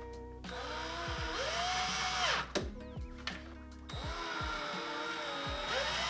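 Cordless drill driving screws into a smart lock's back plate: two runs of about two seconds each, the motor whine rising in pitch as it spins up and dropping off as the trigger is released.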